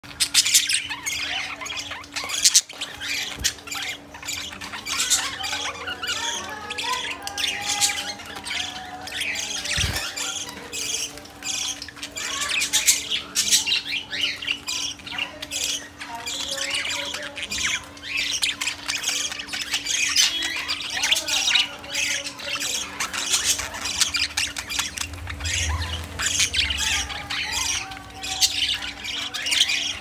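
Several budgerigars chattering together: a continuous stream of overlapping high chirps, squawks and warbles.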